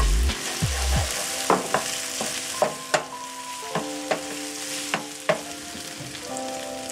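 Fried tofu, carrots and green onions sizzling in a nonstick wok while a wooden spatula stirs them, with sharp knocks of the spatula against the pan. The sizzle is strongest in the first few seconds and then eases.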